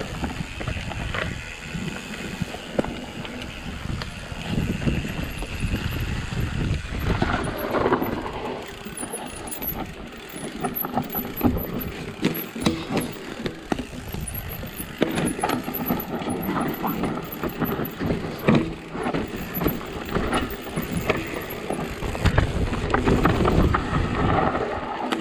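Mountain bike being ridden over rough ground: wind buffeting the microphone over tyre noise, with frequent knocks and rattles from the bike.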